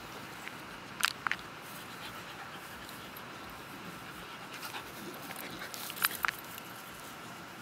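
Two dogs play-wrestling, a puppy on its back and an older dog: panting, with two pairs of short, sharp sounds about a second in and again about six seconds in.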